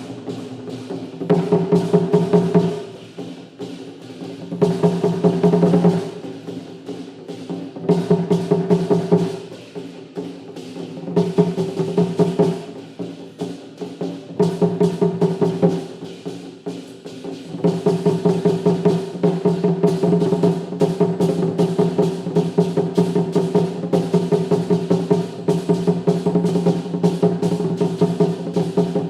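Traditional percussion ensemble drumming fast, dense strokes in loud phrases that drop back every couple of seconds, then running on continuously loud from about two-thirds of the way through.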